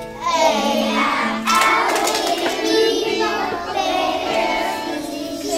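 A group of young children singing together over backing music, the voices coming in just after the start.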